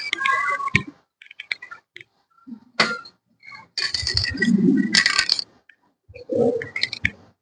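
A garden chair being picked up and moved: a run of clinks, knocks, rattles and scrapes, loudest about four to five seconds in.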